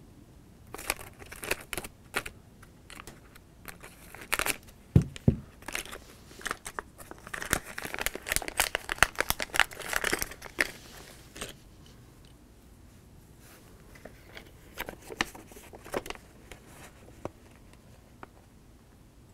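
A foil blind-bag packet of Lego minifigure parts rustling and crinkling as it is handled and opened, densest near the middle. Later come a few light plastic clicks as minifigure pieces are handled.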